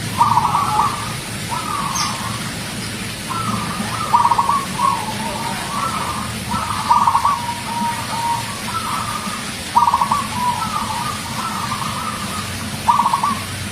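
Zebra dove (perkutut) cooing: a steady run of short, trilled coo phrases at about the same pitch, roughly one a second.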